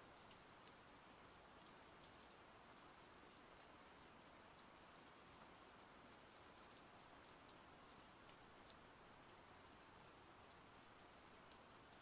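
Faint, steady rain: an even hiss scattered with small drop ticks.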